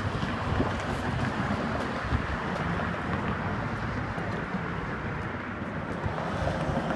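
1953 Chevrolet 210's engine idling steadily.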